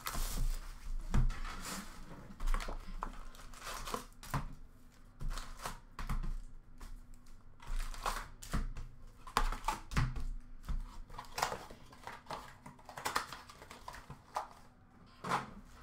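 Shrink wrap crinkling and cardboard rustling as a sealed hockey card hobby box is unwrapped and opened, and its foil packs are taken out and set down on the counter, in irregular rustles and short clicks.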